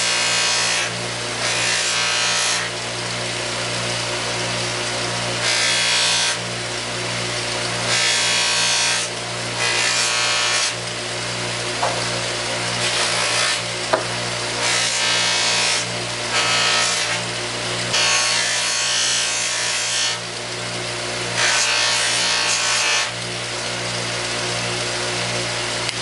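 Bench buffer motor running with a steady hum, while a wooden pistol grip is pressed against the spinning buffing wheel again and again: about ten rubbing hisses, each a second or so long, as the grip's finish is buffed.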